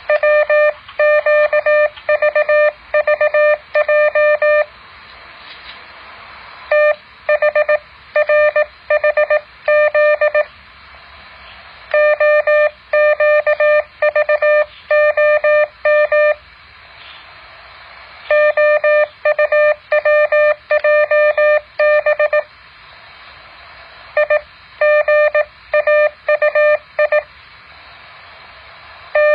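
Morse code practice tone: a single steady-pitched beep keyed rapidly into dots and dashes, sent in groups of a few seconds with pauses of a second or two between them, and a faint hiss in the pauses.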